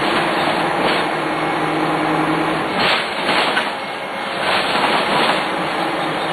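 Dennis Lance bus's Cummins 6CT six-cylinder diesel running at a steady note, with a few short surges of broad noise about halfway through.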